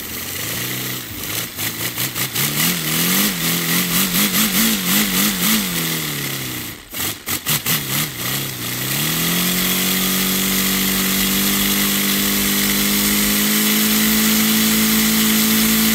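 Paper radial four-cylinder compressed-air engine running on compressor air: rapid exhaust chuffs over a constant hiss of air, quickening over the first few seconds. About halfway through it stutters, then spins up into a fast, steady high hum with the air still hissing.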